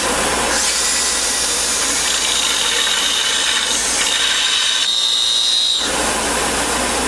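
A power tool running steadily with a loud hiss and a high-pitched whine that rises in pitch about half a second in.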